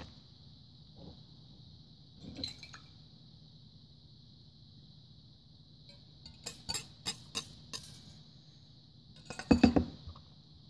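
Metal spoon clinking and scraping against a mixing bowl while flour and wet ingredients are stirred into dough. There are a couple of taps a couple of seconds in, a quick run of clinks later, and the loudest cluster near the end.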